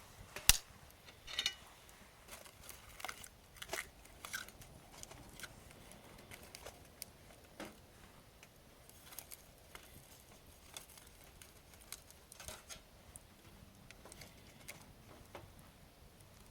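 Wood campfire crackling: irregular sharp pops and ticks, with one loud pop about half a second in.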